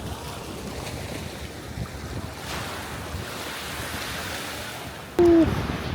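Sea waves washing on a beach, with wind buffeting the microphone. About five seconds in comes one short, loud call from a person's voice.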